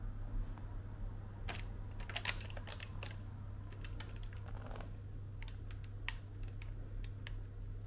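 Scattered light clicks and taps as brownie batter is poured from a metal mixing bowl into a parchment-lined dish: the bowl and the parchment paper being handled. There is a cluster of clicks in the first few seconds, a string of lighter ones near the end, and a steady low hum throughout.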